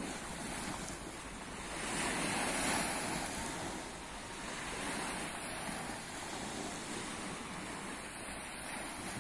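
Small Black Sea waves washing onto a sandy beach, with wind on the phone's microphone. The surf swells loudest about two to three seconds in, with a smaller swell a couple of seconds later.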